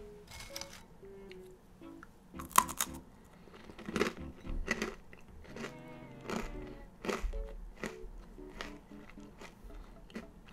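Quiet background music made of short, separate soft notes, overlaid by a series of sharp crunchy clicks. The loudest click comes about two and a half seconds in.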